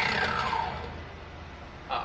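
Vevor 10-inch sliding compound miter saw motor and blade coasting down after being switched off: a falling whine that fades over about a second. The saw has no blade brake, so it spins down slowly.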